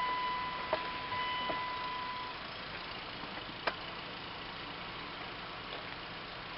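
A truck engine runs at low speed, heard from inside the cab as it rolls slowly over a gravel lot. A steady high tone sounds for about the first two seconds, and there are a few sharp clicks, the loudest about three and a half seconds in.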